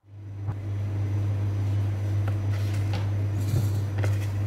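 Steady low machine hum of kitchen equipment, like a fan or motor running, with a few light clicks and taps of a plate being handled on a steel counter.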